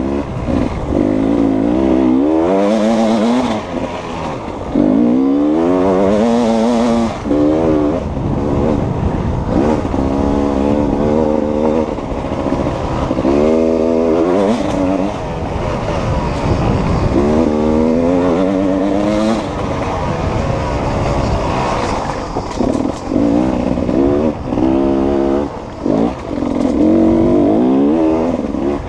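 Beta two-stroke enduro motorcycle engine heard from on board, revving up again and again with the pitch climbing steeply and dropping back as the rider accelerates and backs off on the trail.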